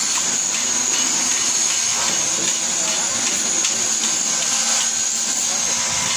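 Electric bench grinder running steadily while a tool bit is ground on its wheel, a constant high-pitched hiss.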